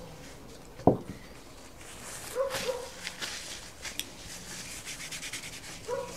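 Meal-table sounds: one sharp knock about a second in, a brief vocal sound near the middle, then light clicks and rubbing of cutlery on plates.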